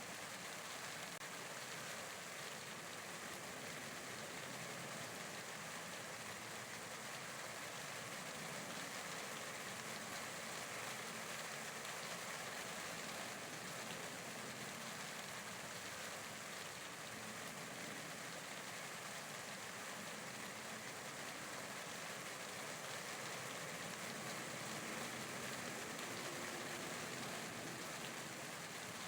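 Steady rain falling, an even hiss of many drops with no single drop standing out.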